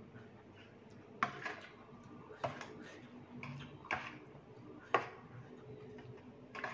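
Metal fork and spoon clinking against a bowl while rice noodles are stirred through curry: sharp clicks, about one a second.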